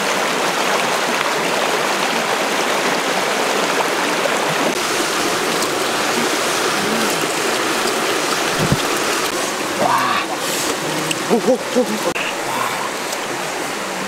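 Shallow rocky stream rushing over stones: a steady, even water noise. Brief voices break in near the end.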